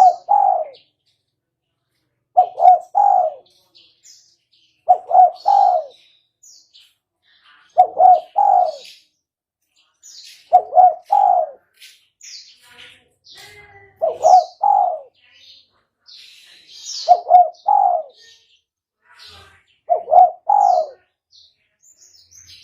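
Spotted dove (tekukur) cooing: a short phrase of a few coos, repeated about every three seconds, eight times. Faint high chirps of other birds come between the phrases.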